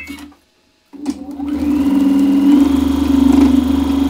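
Electric domestic sewing machine stitching two pieced quilt rows together. It starts about a second in after a short knock, speeds up, then runs steadily with the fast rattle of the needle.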